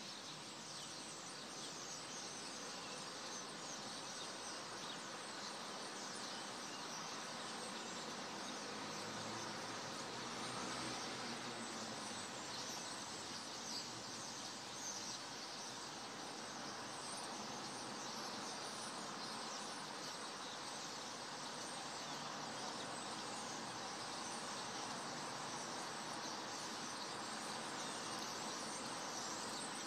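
Steady evening outdoor ambience of insects, with faint, scattered bird chirps.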